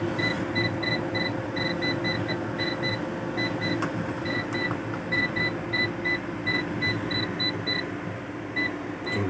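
Homemade UPS's alarm buzzer sounding short, high-pitched beeps, about three a second, with a brief pause near the end, over a steady low hum.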